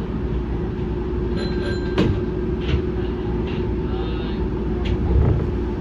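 Semboku Rapid Railway 5000 series electric train standing still, its equipment giving a steady hum. A sharp clunk comes about two seconds in, with a few short faint tones and clicks after it.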